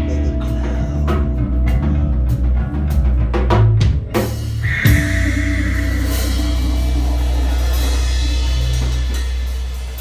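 Live band music closing out a song. Drum kit and bass play short hits for about four seconds, then a final crash with cymbals and a held low note that rings on and fades near the end.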